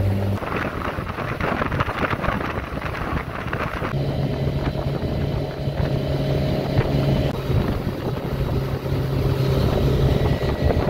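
Motorboat's outboard motor running under way, with wind rushing over the microphone; the engine settles into a steady hum about four seconds in.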